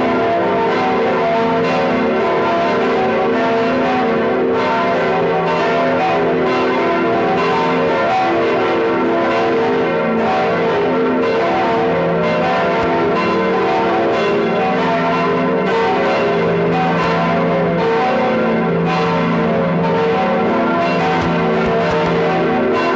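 Several church bells ringing together without a break: a loud, dense peal of overlapping bell tones.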